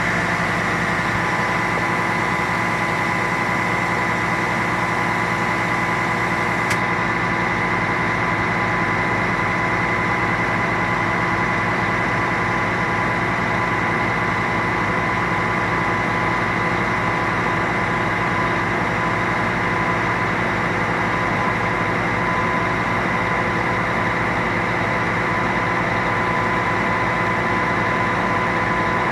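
Truck's diesel engine running steadily, powering the Fassi crane's hydraulics as the telescopic boom extends, with a steady high whine and one sharp click about seven seconds in.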